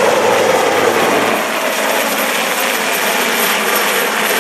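Sikorsky S-61 helicopter flying overhead, its twin turbine engines and main rotor making a loud, steady noise.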